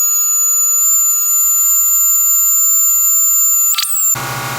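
High-pitched cut-off tool or grinder whining steadily as it cuts a stuck truck bed bolt flush, its pitch rising briefly near the end as it comes off the metal before it stops abruptly.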